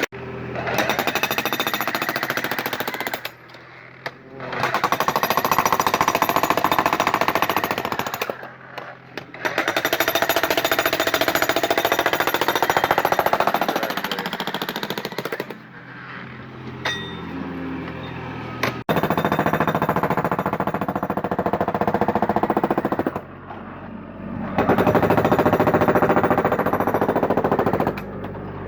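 Jackhammer breaking up a concrete driveway slab, hammering in five runs of a few seconds each with short pauses between.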